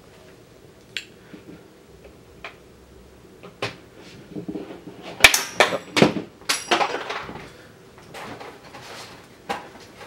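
A steel snap ring (retaining ring) and snap ring pliers clicking and clinking as the ring is picked up and worked back into place. Sharp metallic clicks come one at a time, then a cluster of louder clicks with a brief metallic ring about five to seven seconds in.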